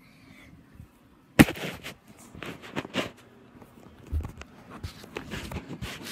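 Phone handling noise: a sharp knock about a second and a half in, then a run of irregular clicks, bumps and rustles as the phone is moved about and rubbed.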